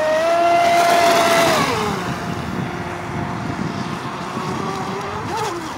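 Proboat Shockwave 26 RC speedboat's 3300kv Turnigy 540L brushless motor whining at speed over the hiss of water spray. The whine is loudest at first, drops in pitch about a second and a half in, then holds lower and steady, with a short wobble in pitch near the end.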